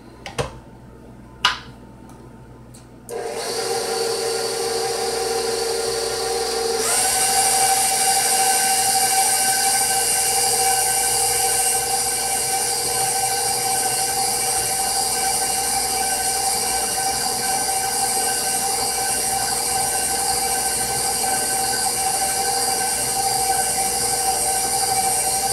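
A KitchenAid Professional bowl-lift stand mixer whining steadily as its flat beater mixes thick pound cake batter. Two short knocks come before the motor starts about three seconds in. A few seconds later it steps up to a higher speed, higher in pitch and louder.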